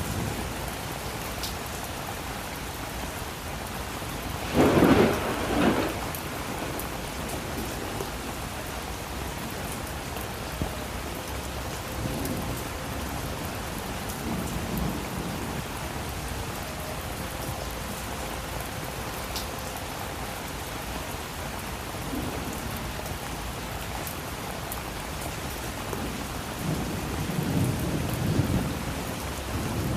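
Steady rain with thunder: a loud thunderclap about five seconds in, then low rumbles of thunder, the longest near the end.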